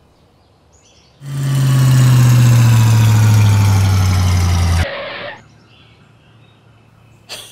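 Monster truck engine sound effect: a loud, steady engine note that falls slowly in pitch for about three and a half seconds as the truck pulls in, then cuts off.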